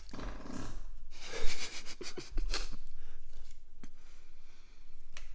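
Trading cards and pack wrappers being handled: rustling and scraping with a few sharp clicks, the loudest a snap about a second and a half in.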